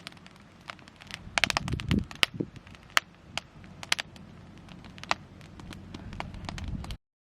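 Irregular sharp crackles and pops, with a few dull thumps about a second and a half in; the sound cuts off suddenly near the end.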